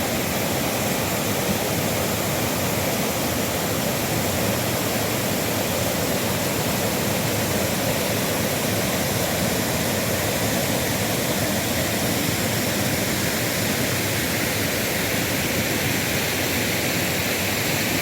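Waterfall pouring steadily into its pool: a constant, even rush of falling water.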